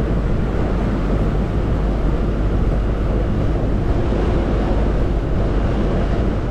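Steady rush of wind buffeting the microphone on a moving tour boat, with the boat's engine running underneath.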